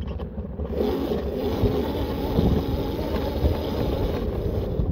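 A 1500 W electric bike riding off-road, its tyres running over rough ground, with wind noise on the microphone. The noise grows louder about a second in.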